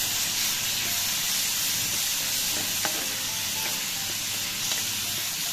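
Chopped tomatoes and garlic sizzling in hot olive oil in a non-stick frying pan as a wooden spatula stirs them: a steady frying hiss with a light spatula tap about three seconds in.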